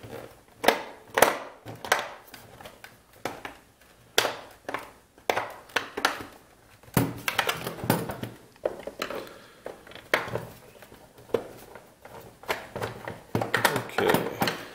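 Irregular clicks, knocks and scrapes of a plastic hedge-trimmer housing being handled and worked apart by hand with a screwdriver.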